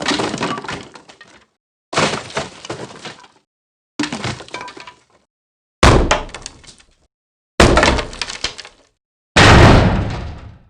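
Six separate cartoon crash-and-breaking sound effects, one about every two seconds. Each is a clattering smash that dies away into dead silence before the next begins. The last one is heavier, with a deep boom under it.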